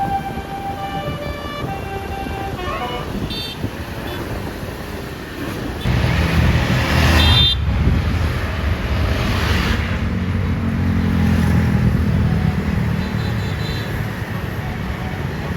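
Multi-note basuri 'telolet' bus horn playing a tune of stepped notes, then a bus passing close with a loud engine rumble and a short horn toot as it goes by. The rumble fades away slowly afterwards.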